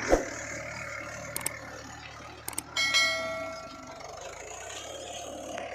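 A sharp thump, then a low diesel engine hum with a few light clicks and a ringing metallic clang about three seconds in that fades over about a second.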